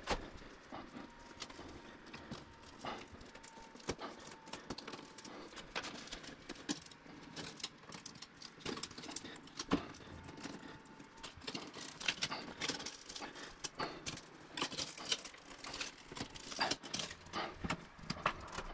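Quiet, irregular small clicks, taps and knocks of hands handling tiles, plastic leveling clips and metal edge trim, growing busier about two-thirds of the way in.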